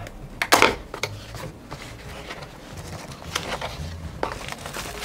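A small unsealed cardboard box being opened by hand: a sharp cardboard scrape about half a second in as a tucked flap is pulled free, then lighter taps and rustles as the flaps are folded back.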